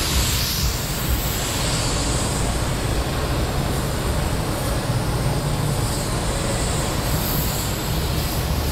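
Steady hissing spray of a jet of mist played over a front brake caliper and rotor, with no breaks.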